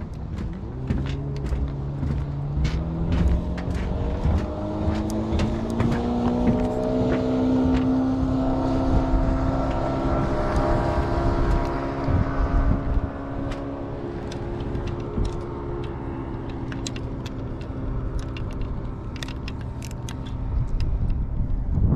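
An engine running, its hum rising in pitch over the first several seconds, holding steady, then fading about halfway through, over low wind rumble and scattered clicks.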